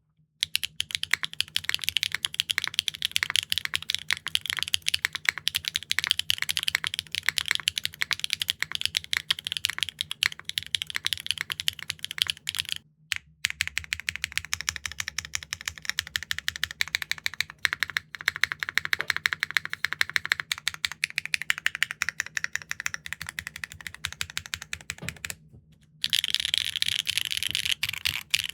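Fast, continuous typing on a mechanical keyboard fitted with HMX Electric Wave factory-lubed linear switches, on a Neo65 Core Plus with a carbon fiber plate, no foams and GMK keycaps. The keystrokes give an OG HMX clack. The typing breaks off briefly about halfway through and again shortly before the end.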